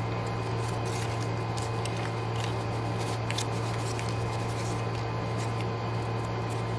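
Steady low hum, with faint small clicks and rustles of paper being handled.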